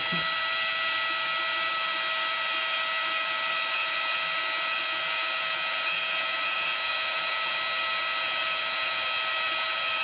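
Small electric transfer pump running steadily with a constant whine, circulating vinegar through a tankless electric water heater to descale it.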